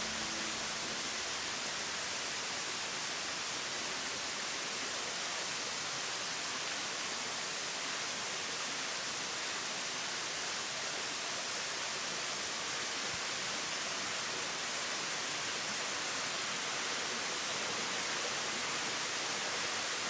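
Waterfall: a steady, even rush of falling water, unchanging throughout.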